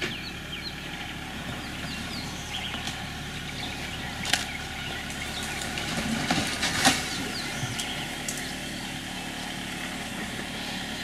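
Steady low hum of an idling engine, with short high bird chirps scattered through and two sharp clicks, about four and seven seconds in.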